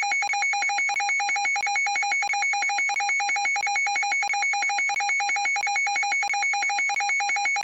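Electronic alarm tone of a mock emergency alert, ringing like a telephone bell: two pitches sound together and pulse rapidly and evenly without a break.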